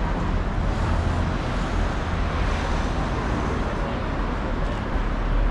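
Busy city-street traffic: road vehicles running past with a steady low rumble.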